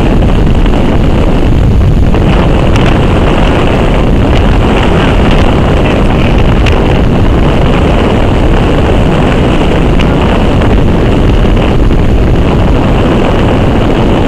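Loud, steady wind rumbling and buffeting on the microphone in strong storm winds.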